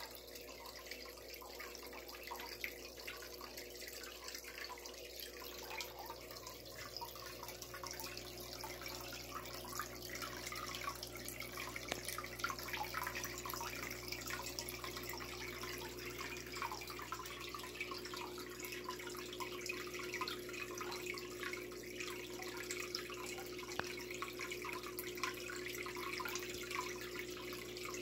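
Steady trickling and bubbling of water in a goldfish tub, with a faint steady hum beneath it.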